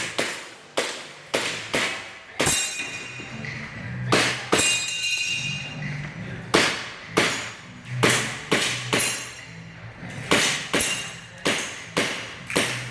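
Airsoft pistol firing shot after shot, about two sharp cracks a second, with a high ringing after some of them.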